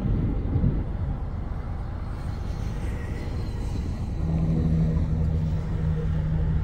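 Low rumble of a motor vehicle's engine, with a steady engine hum setting in about four seconds in.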